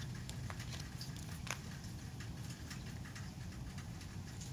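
Small clicks and taps as a phone in a soft black case is handled, with one sharper click about a second and a half in, over a faint steady low hum.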